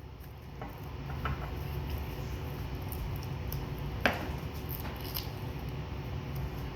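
Small items from a survival kit tin being handled: soft rustling and a few light clicks, with one sharper click about four seconds in.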